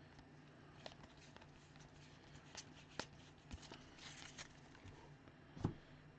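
Faint rustle and light clicks of trading cards being handled and slid one behind another, with a soft knock near the end.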